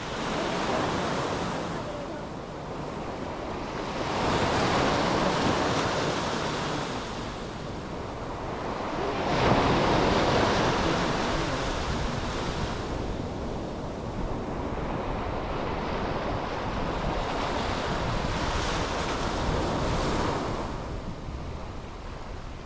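Sea waves breaking and washing up the beach in several slow surges a few seconds apart, the loudest about halfway through, with a low wind rumble on the microphone.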